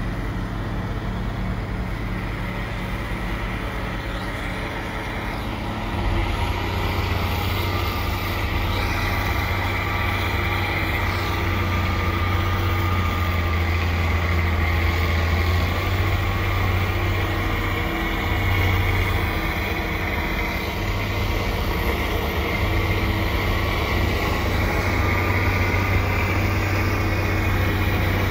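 Heavy engines of a snowblower and a dump truck running steadily together as the snowblower loads snow into the truck, getting louder about six seconds in.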